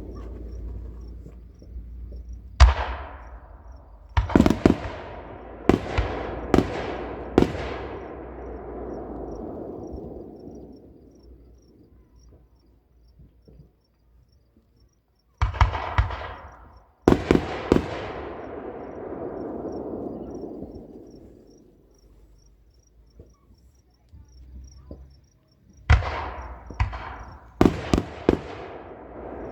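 Aerial fireworks shells bursting in three clusters: a run of about six sharp bangs in the first eight seconds, two more around the middle, and several close together near the end. Each bang is followed by a long rolling echo that fades away.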